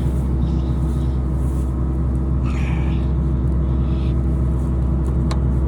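Combine's diesel engine idling steadily with a deep, even hum, and a sharp click near the end.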